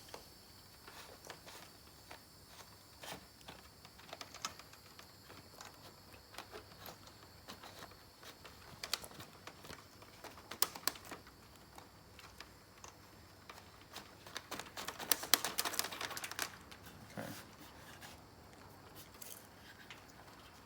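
Scattered light clicks, taps and rustling of hands handling wiring and feeding it through behind the caravan's front panel, with a busier burst of clicking about three quarters of the way through.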